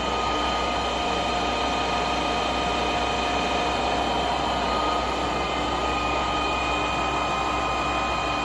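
Horizontal spindle of a Stanko 6A82III milling machine running unloaded at its top speed of 2000 RPM: a steady mechanical whine with several high, even tones over a constant hum.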